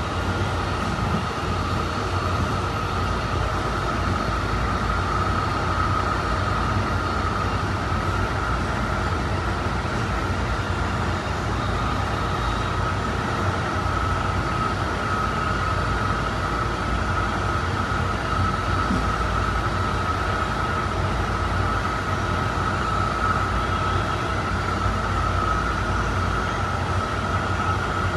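Honolulu Skyline metro train running at steady speed, heard from inside the car: a low rumble of wheels on the track with a steady whine held throughout.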